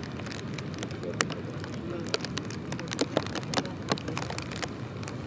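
Steady outdoor background noise with many irregular sharp ticks and taps, and faint distant voices.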